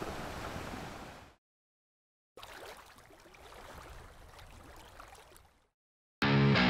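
Intro logo sound effects: a rushing surf-like noise that fades out about a second in, then a fainter trickling, water-like rush with small clicks. Loud rock music with guitar cuts in suddenly near the end.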